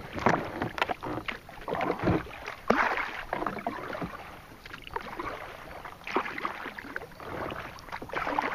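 Kayak paddling: the paddle splashes through the water in irregular strokes, with a few sharp knocks among them.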